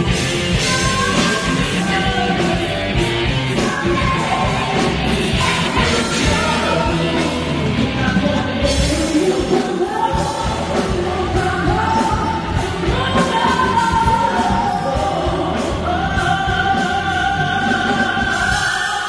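Live band playing loudly with a woman singing through a microphone and PA at a soundcheck; the sung melody stands out more clearly from about halfway through.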